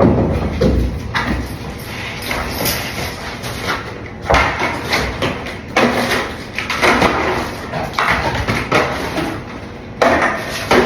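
Rummaging through a rubbish bin for bottles: irregular knocks, thuds and scuffling clatter, in bursts with short pauses between.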